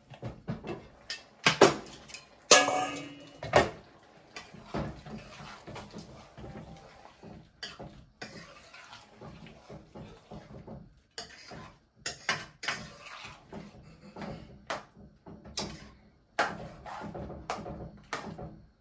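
Kitchen clatter of a pot being uncovered and stirred: a glass pot lid lifted and set down with clinks and a brief ringing clang, then a long metal spoon knocking and scraping against the side of a large cooking pot.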